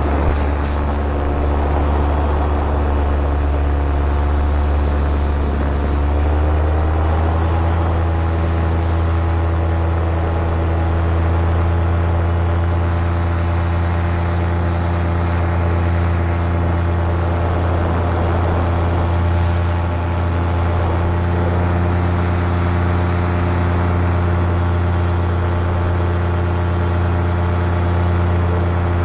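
Paramotor engine and propeller running steadily in flight, heard from the pilot's rig. The engine note rises a little about six seconds in, then holds at a steady cruise.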